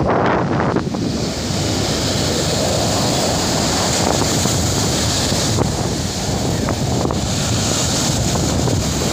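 Sea surf: waves breaking and washing up the sand in a continuous rush, with wind buffeting the microphone.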